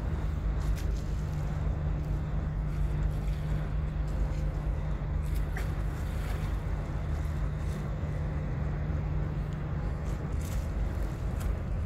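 Engines of the Blue Star Myconos car ferry running with a steady low drone as the ship manoeuvres in harbour.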